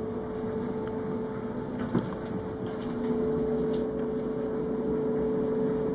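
A steady humming tone, with a single short knock about two seconds in.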